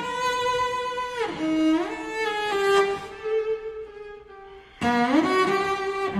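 String quartet of two violins, viola and cello playing: a held high note slides down about a second in, the playing grows quieter a little past the middle, then comes back loud with an upward slide near the end.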